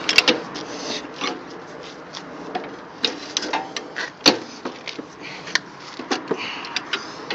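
Wrench and pipe cheater bar working on the tooth-pocket bolts of a Rayco stump grinder's cutter wheel: irregular sharp metal clicks and clinks, with one loud clank a little past four seconds in.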